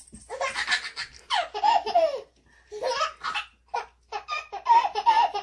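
A baby laughing in several high-pitched bursts with short pauses between them.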